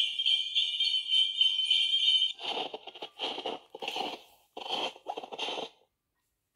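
Sound board book's speaker playing a recorded jingle of sleigh bells, which stops a couple of seconds in, followed by five crunching footsteps in snow.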